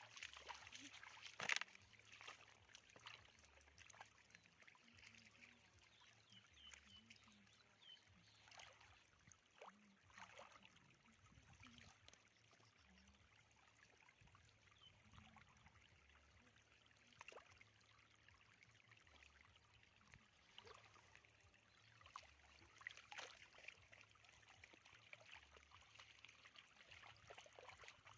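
Faint splashing and trickling of shallow water, with scattered small splashes and one sharper splash about a second and a half in.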